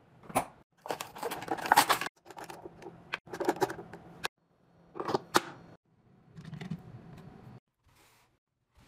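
A run of household handling sounds: clicks, knocks and rustling as items are picked up, moved and set down, in several separate bursts.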